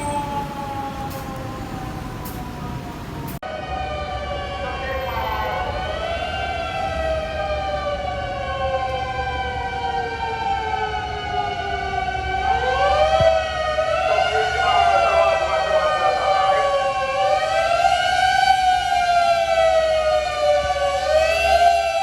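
Several fire engine sirens wailing together, their pitches slowly rising and falling out of step with one another, over the low rumble of the trucks' engines.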